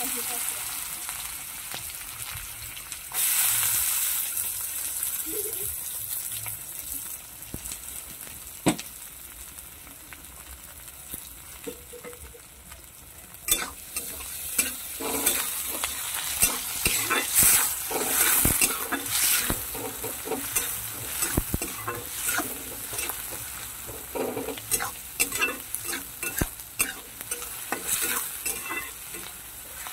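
Chopped onions sizzling in hot oil in a kadai, with a flat metal spatula scraping and knocking against the pan as they are stirred. The sizzle swells about three seconds in, and from about halfway on the scraping and clatter of stirring come thick and fast.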